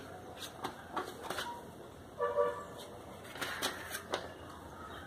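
Paper sheets and a plastic bag rustling and crinkling as they are handled, with a brief pitched toot about two seconds in that is the loudest sound.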